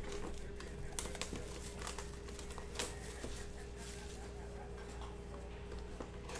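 Plastic shrink-wrap crinkling as it is peeled off a cardboard trading-card box, with scattered light clicks and taps of fingers handling the box. A faint steady hum runs underneath.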